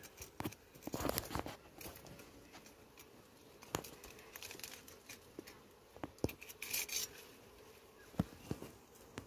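Knife cutting and prying honeycomb out of a rock crevice: tearing and crackling of comb with scattered sharp clicks and scrapes, and louder rustling bursts about a second in and again around seven seconds.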